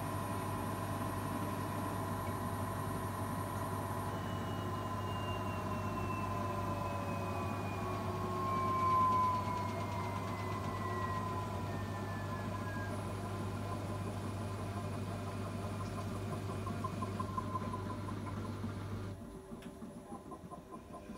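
Zanussi integrated washing machine in its 800 rpm interim spin, winding down: the motor's whine falls slowly in pitch as the drum slows, over a steady low hum. About nineteen seconds in the hum and running noise stop, leaving a faint electrical hum.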